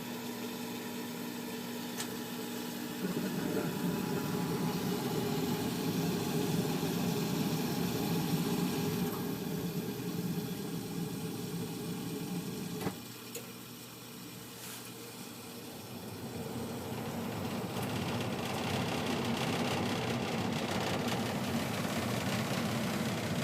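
Furnace cycling: a steady hum turns to a louder rushing about three seconds in, a click about thirteen seconds in brings a quieter stretch, and the sound builds back up from about sixteen seconds. The furnace keeps switching its fan and burner on and off, with flames lasting only a few seconds each time.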